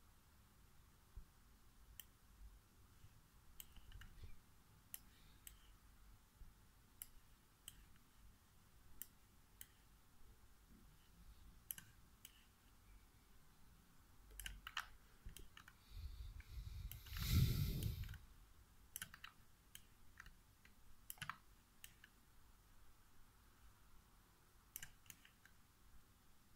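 Faint, irregular computer clicks from a laptop user dragging and dropping items on screen, with one louder noise lasting about a second about two-thirds of the way through.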